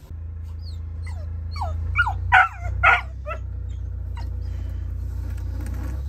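Dog whining and yipping eagerly, with a cluster of short, high, falling yelps from about half a second to three seconds in, over a steady low hum.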